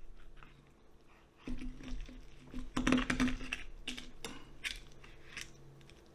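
A table knife cutting and scraping through roasted lamb head meat and bone, its blade clicking and scraping against the board in a string of short strokes, busiest through the middle.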